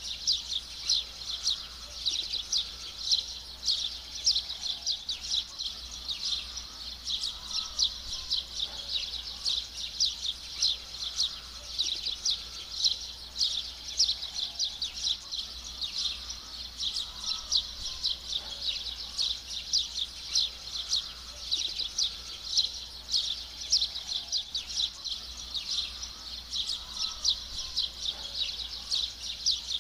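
A dense chorus of many small birds chirping rapidly and without pause, all high-pitched.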